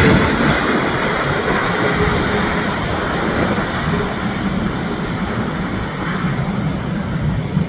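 Boeing 777-300ER's GE90-115B turbofan engines on final approach: a steady jet roar that slowly fades and dulls as the airliner moves away after passing low overhead.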